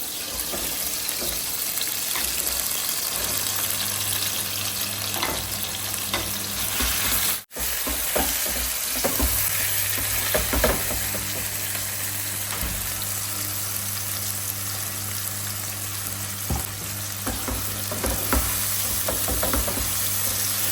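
Food frying in hot oil in a pan, giving a steady sizzle. A few sharp clicks of a utensil against the pan come through, over a steady low hum. The sound drops out briefly about a third of the way in.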